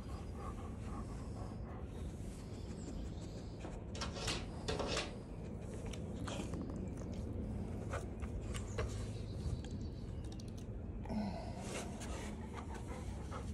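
Close scratchy rustling and small clicks from a hand rubbing a dog's short coat, over a steady low rumble.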